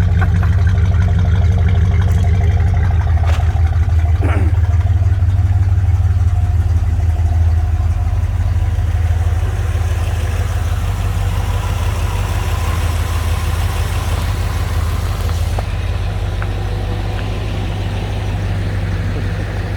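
Freshly restored 1968 Ford Galaxie's engine idling steadily, running well, a little quieter about halfway through.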